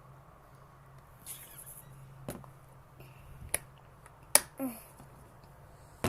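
A few sharp clicks or taps, roughly a second apart, the third the loudest.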